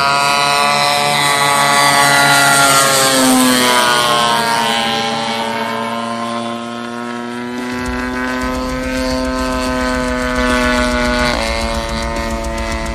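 The 50cc two-stroke gasoline engine and propeller of an Aeroworks RC biplane in flight, a steady high whine. Its pitch rises and then falls as the plane passes low, and about eleven seconds in the pitch drops sharply as the throttle comes back.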